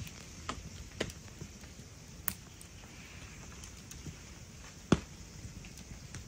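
Wood campfire crackling, with a few sharp pops over a soft steady hiss; the loudest pop comes about five seconds in.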